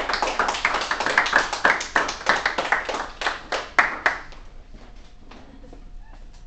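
Hand clapping by a few people, dense and uneven, stopping about four seconds in; only a few faint clicks follow.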